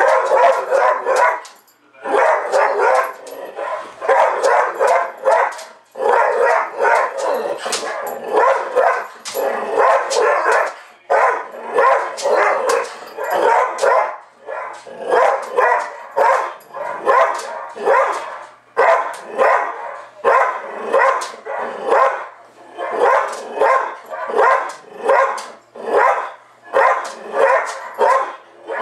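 Airedale terrier barking continuously in quick, repeated barks with only brief pauses, mixed with his own recorded barking played back on the TV he is barking at.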